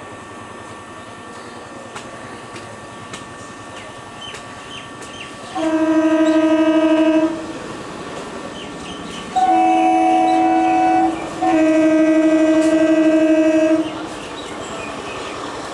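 EMU local train sounding its horn in three steady blasts: one from about six seconds in, then two nearly back to back from about nine and a half seconds, the middle blast a little higher in pitch and the last one longest. Between and under the blasts, the train runs steadily.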